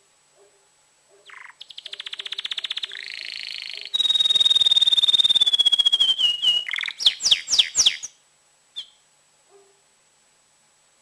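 Male domestic canary in full breeding condition singing one long song phrase: rapid trills, then a long held whistle that slowly falls in pitch, ending in several quick downward sweeps, the loudest part. A single short chirp follows.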